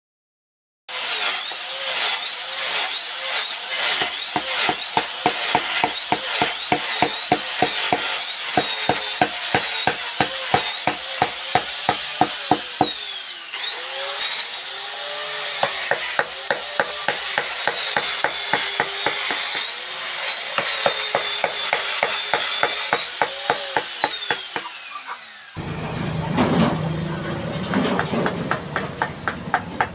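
A small power carving tool cutting wood, its whine dipping and rising again and again as it is pressed in and eased off, over a fast, steady tapping. Near the end the whine stops, leaving steady knocks of a chisel struck with a mallet.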